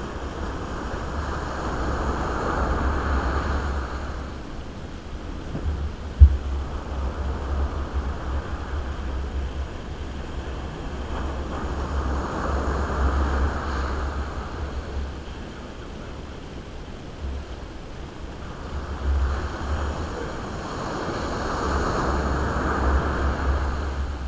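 Surf washing onto a sandy beach, swelling and fading about every ten seconds, with wind rumbling on the microphone. A single sharp knock comes about six seconds in.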